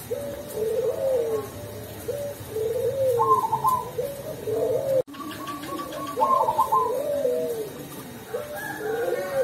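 Zebra dove of the dark cemani variety (perkutut cemani) singing its cooing song over and over: short phrases of soft, deep, mellow coos that rise and fall, with the sound cutting out for an instant about five seconds in.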